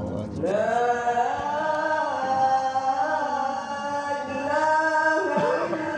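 A man's voice chanting an Islamic recitation in Arabic, a long ornamented melodic line of held notes that bend and waver in pitch. There is a short break near the start and another about five seconds in.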